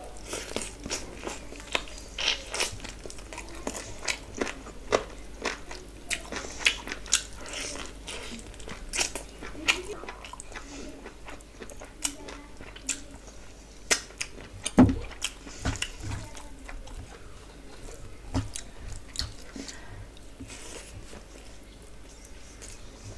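Close-miked eating sounds: a person biting and chewing chicken and biryani rice eaten by hand, with many short wet clicks and smacks of the mouth. A louder low thump comes about fifteen seconds in.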